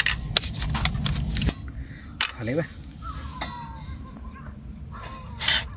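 Night insects, crickets, chirping in an even, rapid pulse of high chirps, with a few clinks of a spoon against a metal cooking pot near the start.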